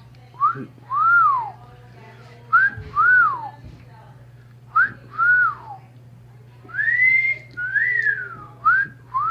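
A pet parrot whistling: pairs of clear notes, each a short rising note followed by a longer one that rises and falls, repeated five times about every two seconds.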